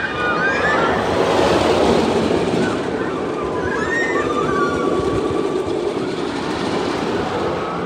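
Rocky Mountain Construction single-rail roller coaster train running along its steel track: a steady, loud rumbling rush of wheels on rail that swells about a second in and holds.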